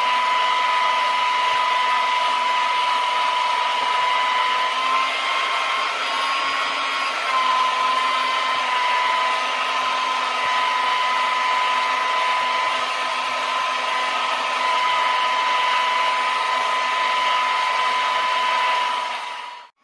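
Corded electric drill with a mixing paddle running steadily at speed, stirring liquid in a plastic bucket: a continuous high motor whine over a hiss, wavering slightly in pitch about five to seven seconds in. It stops suddenly near the end.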